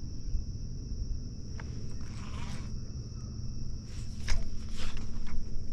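Outdoor ambience: a low rumble with a steady high-pitched buzz above it and a few light clicks.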